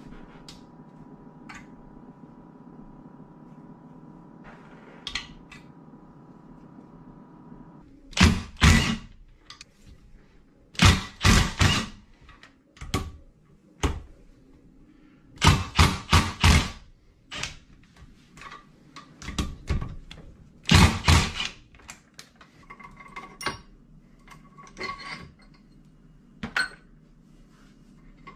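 Metal engine parts and hand tools clanking and knocking on a workbench during a dirt-bike top-end teardown, in several loud clusters of knocks with lighter clinks between. A steady low hum runs underneath for the first several seconds, then stops.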